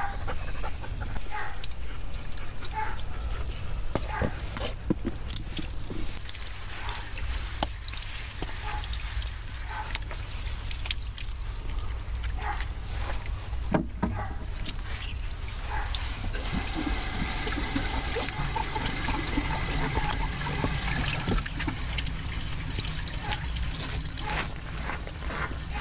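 Water running from a garden hose spray nozzle onto a poodle's legs and the wet concrete under it, a steady hissing spray with splashing as the dog is rinsed.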